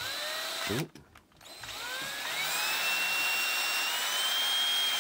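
Cordless drill driving a combined M4 drill-and-tap bit into a clear acrylic part, cutting a thread. The motor runs briefly and stops just under a second in. After a short pause its whine rises in pitch as the trigger is squeezed, then holds steady at speed.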